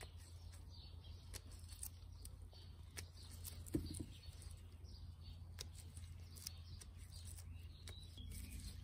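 Green walnuts being husked by hand with a small knife: faint scattered clicks and taps of the blade and husks over a steady low hum, with one slightly louder bump about four seconds in.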